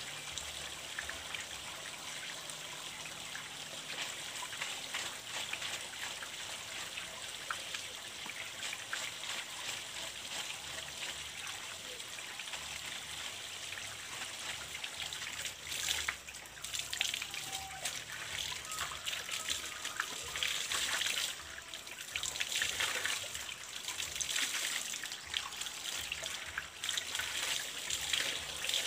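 Water trickling steadily from a PVC pipe outlet. From about halfway through, irregular splashing joins in as a cloth baby diaper is rinsed by hand in the stream of water.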